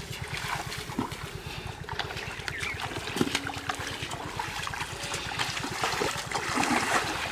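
Shallow muddy water trickling and splashing as people wade and grope through it by hand for fish, with scattered small splashes. A steady low throb runs underneath throughout.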